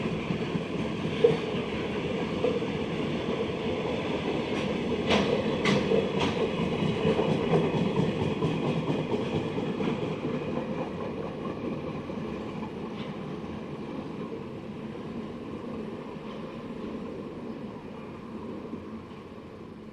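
Freight train rolling past, its wagon wheels clattering over the rail joints, with a few sharp clacks about five to six seconds in. The sound fades steadily over the second half as the train draws away.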